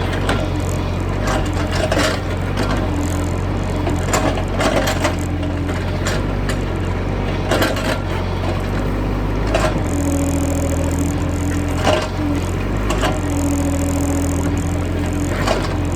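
Excavator's diesel engine running steadily under load, with repeated knocks and cracks as the bucket breaks into a hard-packed termite mound. A steady hydraulic whine comes in about ten seconds in.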